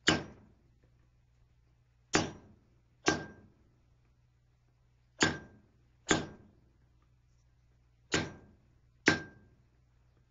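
Blacksmith's hammer striking steel on an anvil while forging a steel fishing gig. There are seven sharp blows, mostly in pairs about a second apart, and several of them ring briefly.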